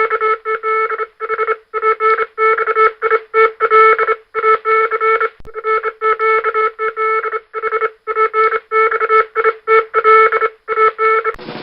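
Morse code sent as a buzzy tone keyed on and off in short dots and longer dashes, with brief pauses between characters and words.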